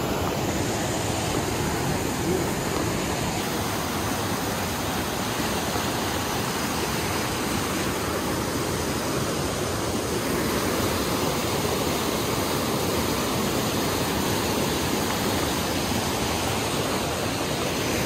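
Steady rush of whitewater as a fast river pours over rocks and stonework in rapids.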